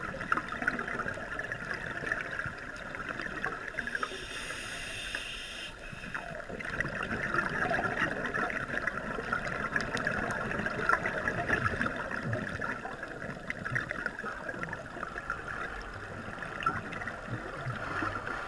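Underwater sound on a scuba dive: a steady fine crackling of the reef water, with a scuba regulator's breathing. A hiss about four seconds in is followed by a louder gurgle of exhaled bubbles.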